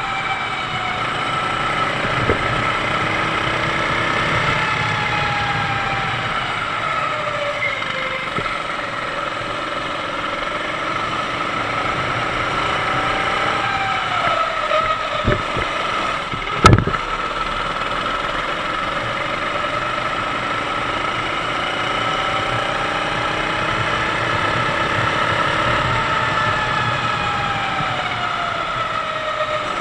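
Sodi go-kart's 390cc four-stroke engine heard from on board, its pitch rising and falling over and over as it accelerates and lifts through the corners. A single sharp knock a little past halfway is the loudest moment.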